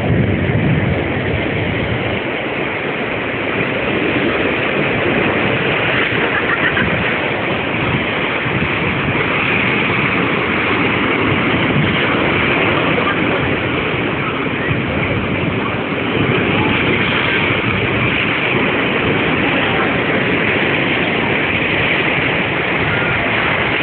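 Ocean surf breaking and washing over the boulders of a rock jetty: a steady rush of water.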